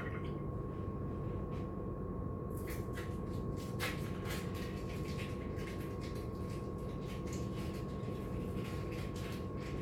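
Faint clicks and rustles of hands handling cheese slices and ham on the counter, starting a couple of seconds in, over a steady low hum with a thin steady whine.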